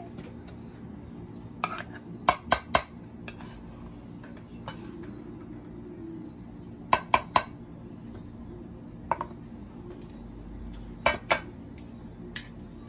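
Metal kitchen utensil knocking and clinking against a pot while mashed potatoes are mashed and mixed, in short groups of two or three sharp taps a few seconds apart.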